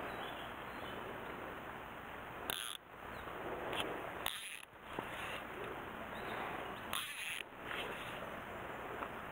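Steady rushing of river water, broken briefly three times.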